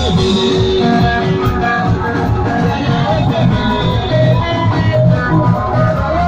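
A live band playing amplified music through loudspeakers, with electric guitar and bass guitar over a steady beat.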